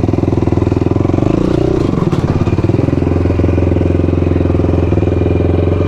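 Quad (ATV) engine running at low speed with a steady throb, revving briefly about a second and a half in and then settling back to a steady lower speed.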